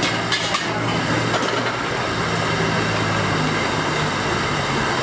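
Street traffic: a vehicle engine running steadily, with a low hum that fades out about four seconds in. A few sharp clatters come about half a second in, over a constant street hubbub.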